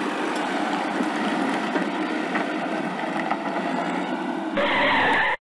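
Mini RC tractor's small electric motor and gears running steadily as the toy tractor drives across sand pulling its trolley. It gets louder about four and a half seconds in, then stops abruptly.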